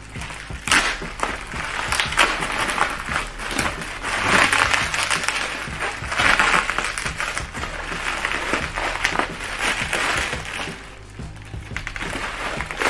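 Plastic bubble wrap crinkling and crackling in bursts as it is pulled open and a desk phone is drawn out of it, easing off near the end.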